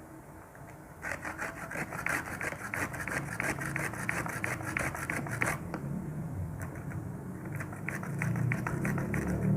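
Shallots being grated on a hand grater: quick rasping strokes, several a second, starting about a second in. After a brief pause past the middle, a sparser run of strokes follows.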